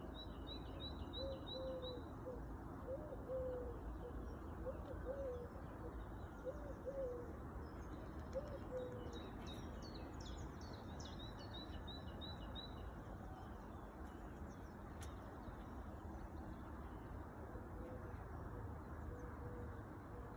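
A pigeon cooing, five low coos spaced over the first half, while a small songbird gives quick runs of high notes near the start and again about halfway, over a steady background hiss.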